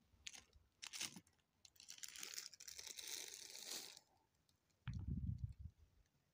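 Quiet crinkling and rustling as a cardboard box of fried rice is handled and a plastic spoon digs into the rice. A few crunchy clicks come in the first second, and a low dull bump comes about five seconds in.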